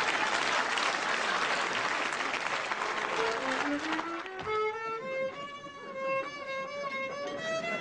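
Studio audience noise fades away, and about three seconds in a solo violin starts up with a rising run of notes, then plays slower held notes.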